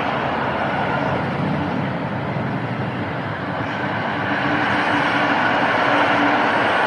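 A train passing with a steady rumble, growing a little louder about four seconds in as a steady hum joins it.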